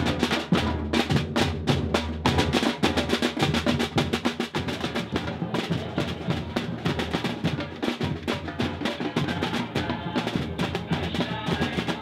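A group of metal-shelled drums played with sticks in a Brazilian batucada, keeping a fast, steady rhythm: rapid snare-like strokes over deep bass drum beats.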